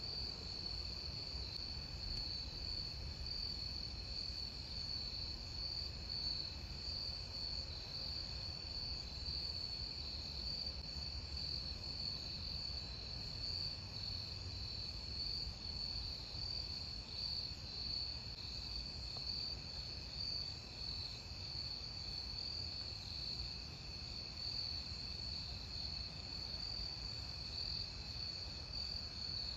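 Steady chorus of night insects, a continuous high trill that holds unchanged, over a low rumble.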